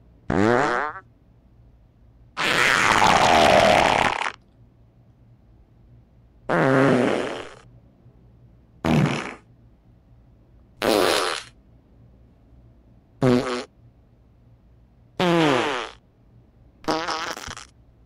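A string of eight separate fart sounds with short pauses between them, varying in pitch and length. The longest and loudest, about two seconds long and raspier, comes about two seconds in.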